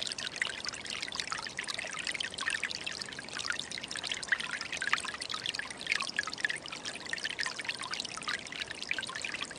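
Small forest stream babbling: a steady wash of running water dotted with many quick little bubbling splashes.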